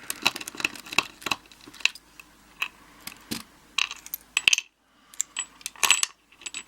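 Small metal parts of an American A5100 padlock clicking and clinking as the lock is taken apart by hand: a string of irregular sharp metallic clicks.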